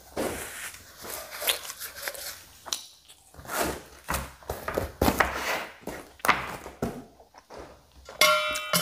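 Mouth sounds of a man eating spicy soup: irregular chewing and breathing sounds, with a tissue rubbing on his face near the start. A short ringing tone comes in near the end.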